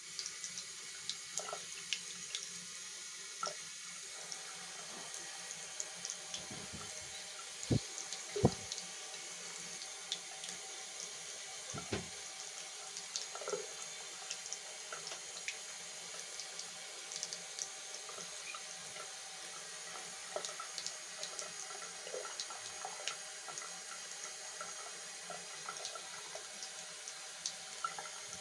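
Tap running a thin stream into a sink basin, a steady splashing hiss with scattered small drip ticks. A few soft knocks stand out about eight seconds in and again around twelve seconds.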